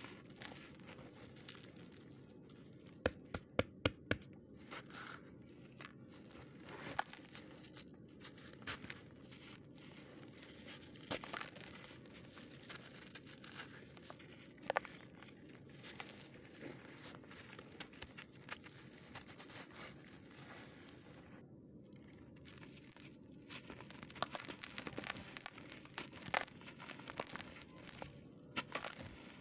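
Hands crumbling lumps of dry clay dirt, with powder sifting through the fingers: scattered crisp crackles and crunches, a quick run of sharp crunches about three to four seconds in, and busier crackling near the end.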